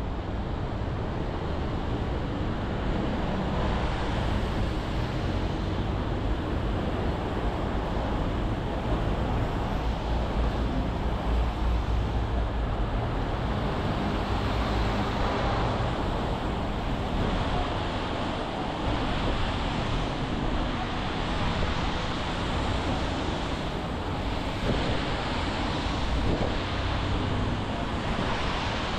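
Steady outdoor street ambience: a continuous rumble of road traffic mixed with wind, with no distinct events.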